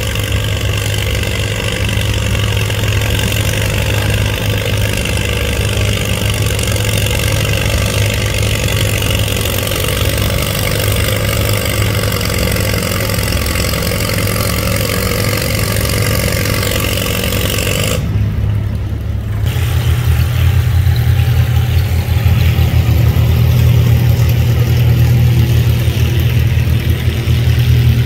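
Antique farm tractor engine running steadily with a low, even hum. About two-thirds of the way through the sound drops out briefly, then the engine comes back louder.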